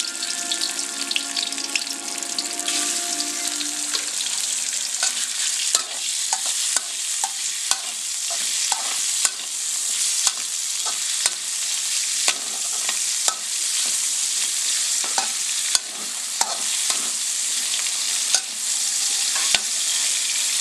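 Chicken, garlic and tofu sizzling in hot oil in a steel wok, with a metal spatula scraping and knocking against the wok as it is stirred. The knocks come irregularly, about one a second.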